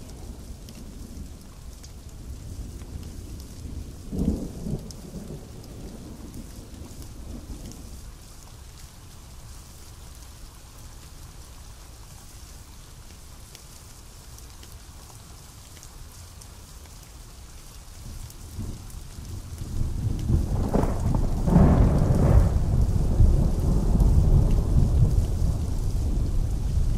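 Steady rain falling with thunder: a short low rumble about four seconds in, then a loud thunderclap building near the end, with sharp cracks and a deep rumble rolling on for several seconds.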